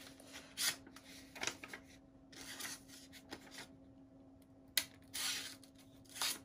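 Freshly sharpened Mora Companion 860 carbon-steel knife slicing into a hand-held sheet of paper in a string of short scratchy cuts, about seven strokes with a sharp one near five seconds in. This is a paper test of the edge, which cuts cleanly because the blade is sharp. A faint steady hum lies underneath.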